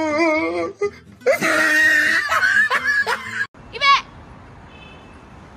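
A person laughing loudly, first in wavering bursts and then in a shrill, breathy stretch that cuts off abruptly. A brief high-pitched cry follows.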